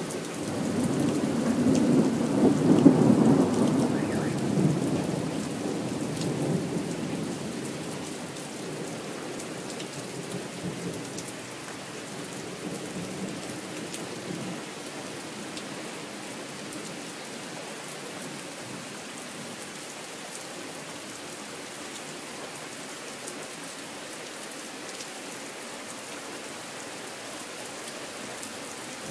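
Thunder over steady rain: a long rolling rumble that builds over the first three seconds and dies away by about eight seconds, leaving the even hiss of rain falling on the pavement and cars.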